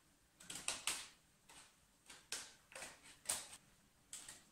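A stiff clear-plastic blister pack being cut open with scissors and pulled apart: a string of about eight sharp plastic crackles and snips at irregular intervals.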